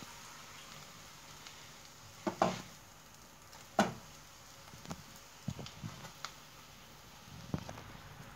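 Bread slices toasting in a pan greased with olive oil, with a faint, steady sizzle. A few short taps and knocks break in as the slices are pressed and moved around the pan by hand.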